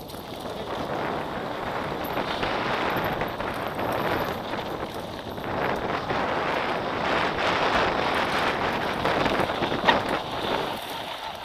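Wind rushing over the microphone and mountain-bike tyres rolling over a dusty gravel track while riding, with one sharp knock about ten seconds in.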